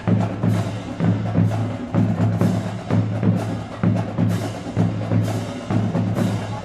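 Pep band playing a drum-driven groove: sharp percussion strokes on a steady beat over deep, sustained low notes.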